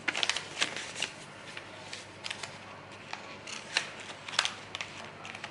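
Paper cards and packaging being handled: scattered light clicks and rustles, several a second.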